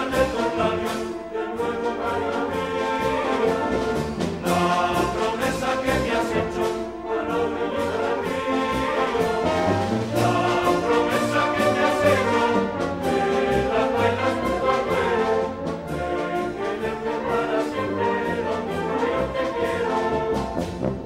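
A brass band playing a tune, with a regular drumbeat under the horns.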